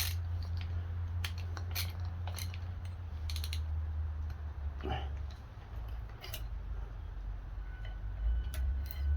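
Scattered light clicks and taps, about a dozen at uneven intervals, from hand tools and the new ignition coil being set in place on a Stihl chainsaw, over a steady low hum.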